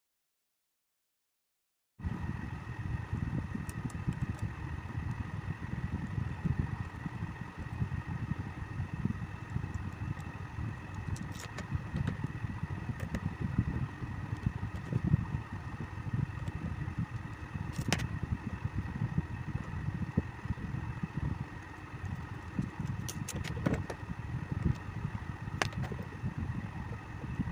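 Table fan motor running with an uneven low rattle over a steady hum, the noise of a worn shaft and bush. It starts abruptly about two seconds in, with a few sharp clicks along the way.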